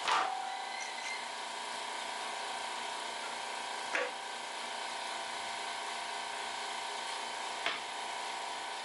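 Lotus LTST1800X table saw running with a steady whine as it cuts wood, with three brief louder moments about four seconds apart.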